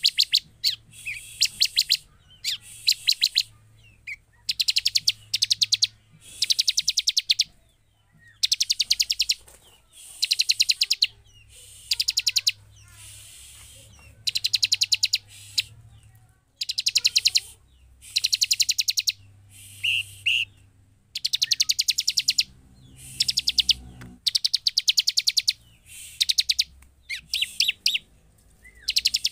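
Bar-winged prinia (ciblek) calling: short, rapid, high-pitched trills of many quick repeated notes, one about every second, separated by brief pauses, with a pair of clearer whistled notes near the middle.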